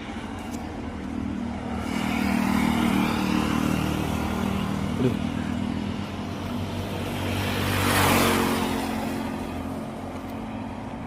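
Dumper truck's engine running steadily, with a sharp click about five seconds in and a louder rushing swell that peaks about eight seconds in.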